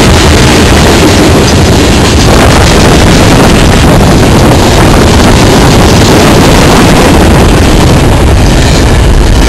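Freight train cars rolling past at close range, their steel wheels making a steady, very loud rumble on the rails. Tank cars go by first, then double-stack container cars near the end.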